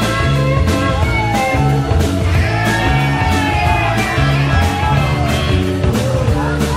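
Live rock-and-roll band playing: drum kit keeping a steady beat of about three hits a second under a repeating bass line, with electric guitar and keyboard and a wavering lead line sliding in pitch above.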